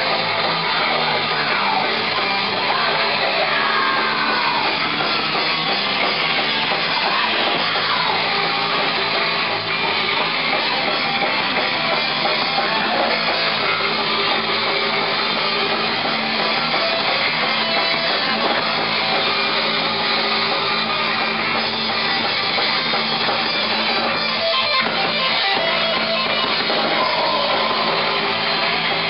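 Thrash metal band playing live and loud: distorted electric guitar riffing on a Jackson V-shaped guitar over a drum kit, a dense, unbroken wall of sound, with gliding bent guitar notes a few seconds in.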